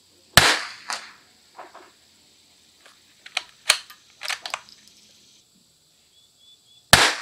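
Two .22 LR rifle shots from a Christensen Arms Ranger 22 bolt-action rifle, about six and a half seconds apart, each followed about half a second later by a smaller crack. Between the shots come the metallic clicks of the bolt being worked to eject the spent case and chamber the next round.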